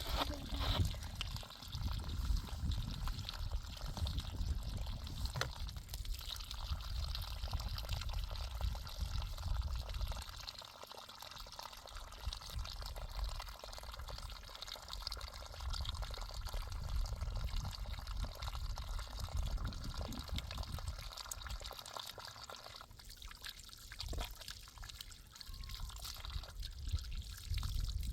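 Water pouring and trickling, over a low rumble that rises and falls, dropping back twice.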